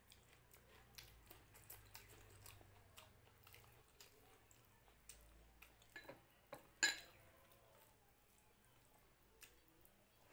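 Faint, soft squelching and small clicks of rice and dal being mixed and picked up by hand, with one sharper click about seven seconds in.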